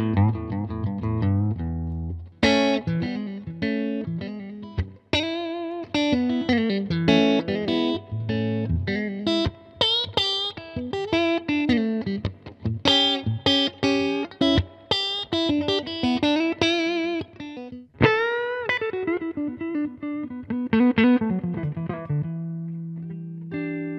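Solo electric guitar played clean through a Lucas Miles Souldigger tube combo amp, modelled on a '65 Princeton Reverb. The playing is a fast run of picked single-note lines with string bends and vibrato, ending near the end on a chord left to ring.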